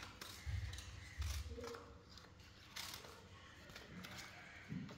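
Scissors snipping through paper in short separate cuts, with a couple of dull low thumps from handling in the first second and a half.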